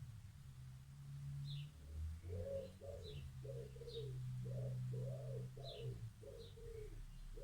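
A pigeon cooing in a rhythmic run of repeated low notes that starts about two seconds in. Faint, short, high chirps from a small bird come now and then, over a steady low hum.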